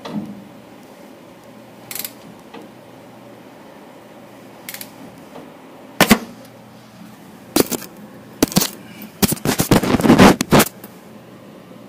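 Sharp metal-on-metal blows on the stub axle of a Dana 44 front axle, struck to free it: scattered single hits, then a rapid run of blows about nine seconds in.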